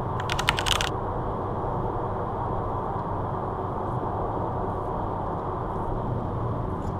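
Steady road and tyre noise inside a car's cabin at motorway speed, with a quick run of sharp clicks lasting under a second near the start.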